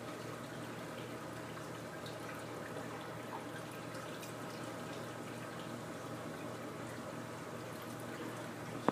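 Fresh water poured from a glass beaker over a pH probe's tip into a small bowl, a steady trickle rinsing the probe before calibration. One sharp knock near the end.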